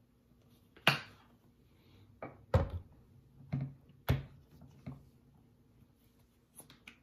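Plastic squeeze bottles of ketchup and mustard being handled: a string of sharp clicks and knocks, the heaviest two about two and a half and four seconds in as the ketchup bottle is set down on the table, and lighter clicks near the end as the mustard bottle is picked up.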